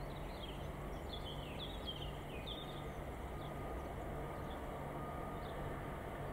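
Small songbirds chirping in quick, falling notes, busiest in the first three seconds and sparser after, over a steady low outdoor rumble.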